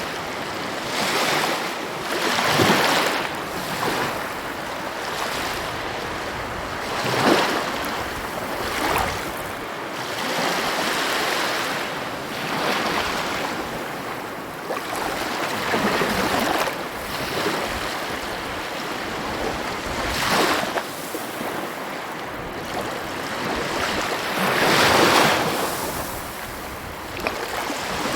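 Sea waves breaking and washing ashore, a continuous surf hiss that swells with each wave every few seconds.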